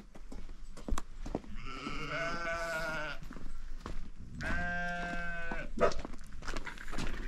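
Two long bleats from the mixed flock of sheep and goats. The first wavers in pitch and lasts about a second and a half, and the second is steadier and a little over a second long.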